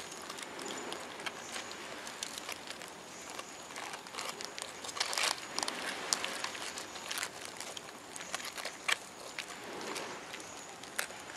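Dry leaves and twigs crackling and ticking as a large land hermit crab in a snail shell shifts and crawls over them. The ticks come irregularly, thickest about five seconds in.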